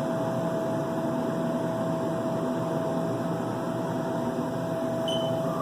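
Haas CNC mill's axis drive running as the table is jogged: a steady whir with one constant whine held throughout.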